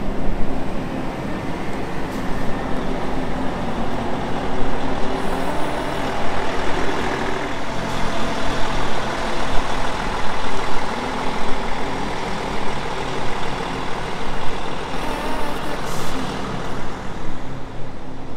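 Large diesel vehicle running, a steady engine drone mixed with road noise, with a brief hiss near the end.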